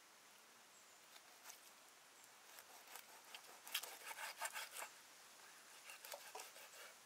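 Large knife scraping and cutting at a whole fish on a wooden block: a run of short, scratchy strokes, faint at first and quickest and loudest in the middle, as the fish is scaled and cleaned.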